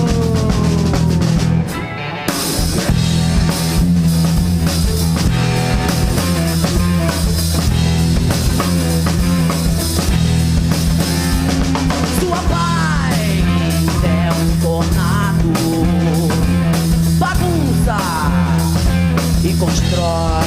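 Live rock band playing an instrumental passage: drum kit, electric bass and electric guitars, with a brief drop in loudness about two seconds in.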